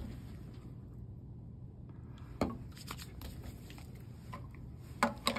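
Hands rubbing dish soap over a simulated IV training arm: quiet handling and rubbing noises. There is one sharp knock about two and a half seconds in and two more close together near the end.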